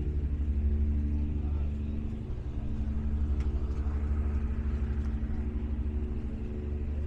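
Tugboat's diesel engine running steadily: a low, even hum with a fast, regular pulse.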